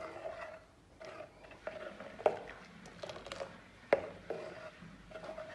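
Steel ladle stirring badam milk in a stainless steel pot, scraping around the pot and knocking against its sides, with two sharp clinks about two and four seconds in.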